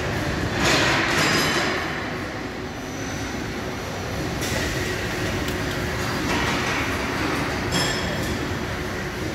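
LNS Quick Load Servo III bar feeder cycling beside the CNC lathe: a steady mechanical hum with louder hissing, whirring surges as its loading mechanism moves, about a second in and again from about four and a half seconds, and a sharp clack near the end.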